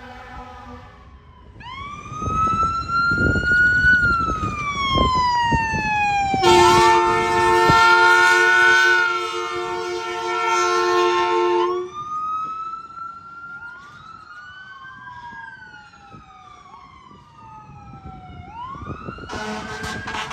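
Emergency vehicle siren wailing, its pitch rising and falling in long sweeps. An air horn blast is just ending as the siren starts, a second air horn sounds about six seconds in and holds for roughly five seconds over the siren, and a third begins near the end.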